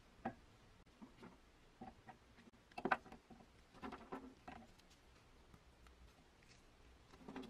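Gummy bears dropped by hand into the metal hopper of an antique Universal food chopper, landing with scattered soft taps and thuds. The loudest is about three seconds in, with a small cluster just after.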